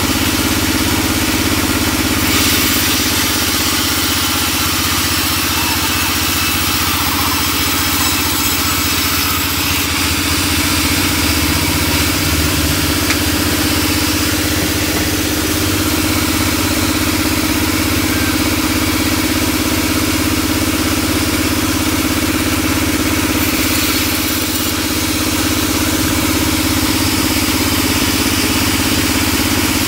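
Large vertical band saw running with a steady machine drone while resawing a timber plank, the hiss of the blade cutting through the wood louder in a couple of stretches.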